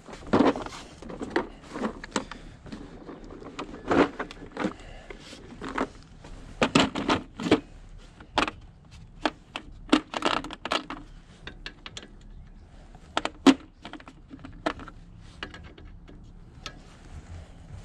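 Hand tools and metal parts clicking and clanking in irregular sharp knocks as accessories are unbolted from a diesel engine.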